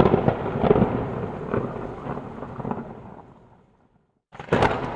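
A thunder-like rumbling boom with crackles, loud at first and fading away over about three and a half seconds, then a second, shorter crack-and-rumble near the end.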